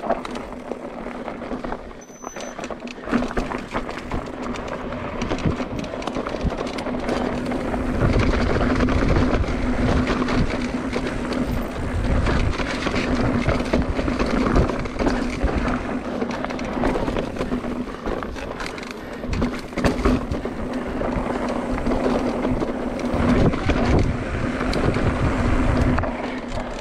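Mountain bike ridden over a rough dirt trail: tyres crunching on gravel and stones, the bike rattling and knocking over bumps, with a steady hum underneath. Wind buffets the microphone, heavier from about eight seconds in.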